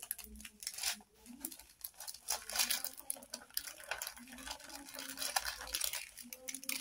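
Small plastic bags of diamond-painting drills being handled: light, irregular crinkling and clicking.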